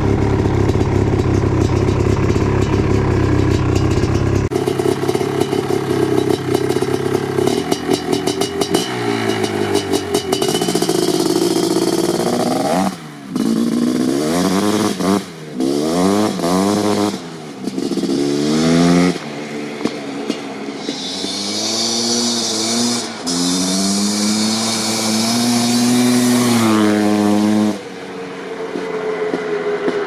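Suzuki LT500R Quadzilla's 500cc two-stroke single through an FMF Fatty pipe and Powercore silencer. It runs steadily up close at first, then revs hard again and again, the pitch climbing and dropping with each shift as the quad accelerates flat out.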